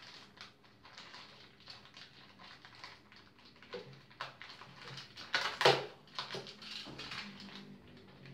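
Clear plastic packaging bags crinkling and rustling as new bicycle tools are unwrapped, with light clicks of the metal tools being handled. A louder crackle comes about five and a half seconds in.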